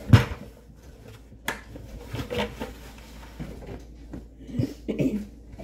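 A plastic 5-gallon bucket knocks sharply against a stone countertop just after the start. It is followed by a towel being handled, with scattered clicks and soft knocks as the bucket is dried.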